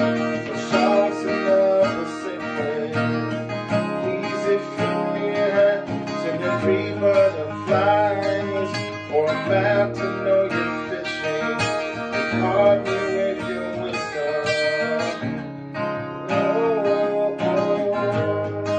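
Ibanez acoustic guitar with a capo, strummed steadily through a chord passage of a slow ballad.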